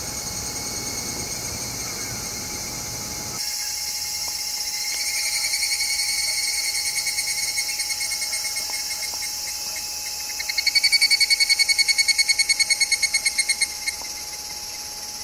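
Higurashi cicadas calling, each call a rapid run of pulses at about ten a second: one swells about five seconds in, and a louder one runs for about three seconds from ten seconds in, over a steady high chorus. A low background hiss cuts out abruptly about three seconds in.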